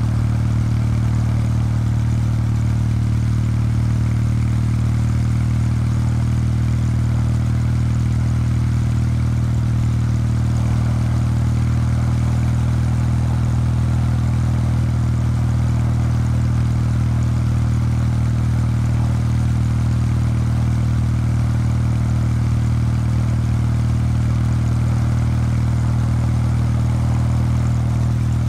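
Kawasaki W800 Street's air-cooled 773 cc parallel-twin engine and stock exhaust, cruising at a steady engine speed, its note holding one even pitch.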